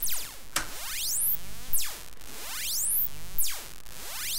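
DIY analogue synthesizer oscillator (Triple Toasted Oscillator) with its pitch swept by an envelope generator: several tones glide together in repeating swoops, falling steeply from very high to low and climbing back, about every second and a half to two seconds.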